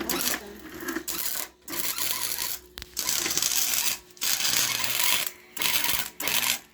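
Electric arc welding: the arc's crackling hiss, stopping and restarting about six times in short runs, as a beginner lays his second weld.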